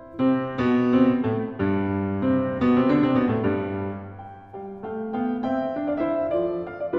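Background piano music: a melody of separate notes over lower chords.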